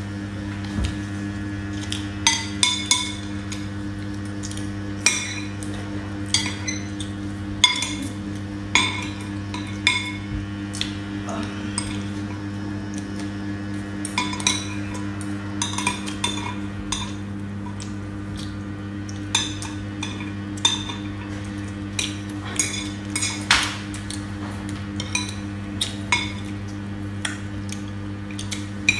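Metal spoons and forks clinking and scraping against ceramic plates and bowls during a meal: irregular sharp clinks, sometimes two or three in quick succession, over a steady low hum.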